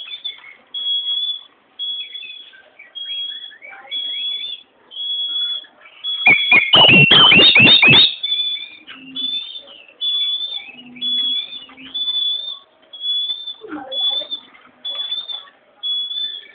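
Oriental magpie-robin singing: a short, flat, high whistle repeated about once a second. From about six to eight seconds in comes a loud burst of rapid downward-sliding notes mixed with sharp clicks.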